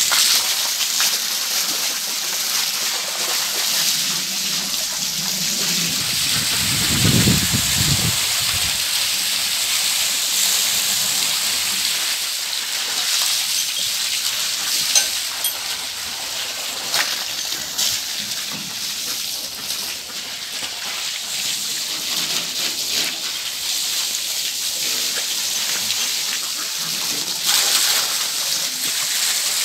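Water from a hose jetting onto a metal farm trailer's bed and splashing off onto the wet ground: a steady hiss with spatter.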